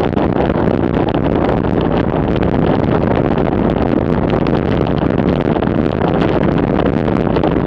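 Steady rush of wind buffeting the microphone of a bicycle-mounted camera on a fast road descent at about 38 km/h.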